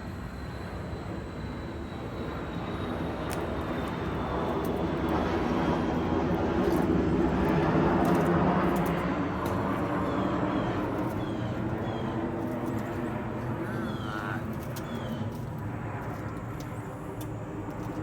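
A passing engine: a low droning hum that swells to its loudest about eight seconds in, then slowly fades. A few short high chirps come over it in the second half.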